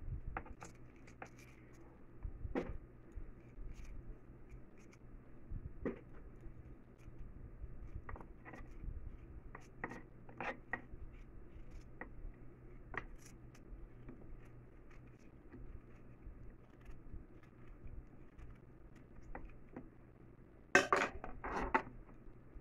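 Small knife peeling fresh ginger root by hand: faint scraping and scattered small clicks as strips of skin come off, with a brief louder clatter near the end.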